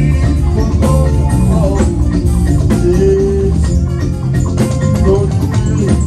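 Church praise music: a band playing with singing and hand percussion.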